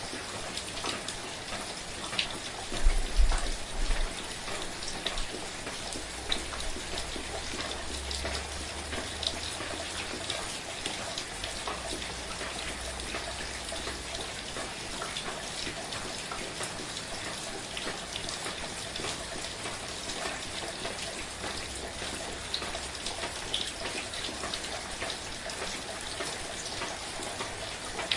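Steady soft rain: an even hiss with many individual drops ticking close by. About three seconds in come a few louder low thumps, and a soft low rumble comes and goes later.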